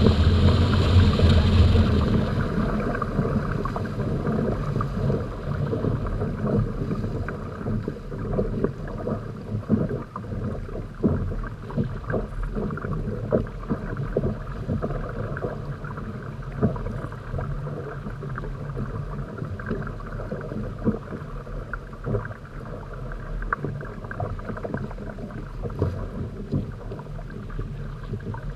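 Water rushing and slapping against the polyethylene hulls of a Hobie Tandem Island trimaran sailing under way, with many irregular splashes and knocks. It is loudest in the first two seconds, then settles to a steadier wash.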